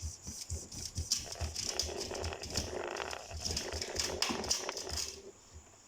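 Kitchen knife cutting a lemon on a hard surface: a quick run of knocks and crackly slicing clicks, about three or four strokes a second, stopping shortly before the end.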